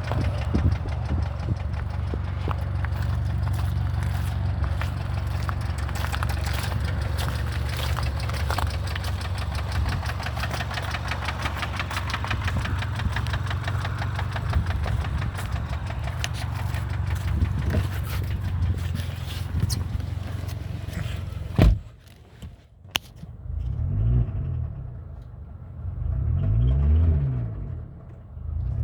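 2015 Kia Rondo engine running with a rapid, steady knocking tick, the engine knock it is sold with. About three quarters through it cuts off with a sharp click. Low rumbling noises follow.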